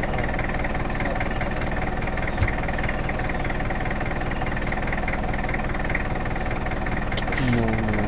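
Safari vehicle's engine idling steadily, with a single sharp tap about two and a half seconds in and a short falling tone near the end.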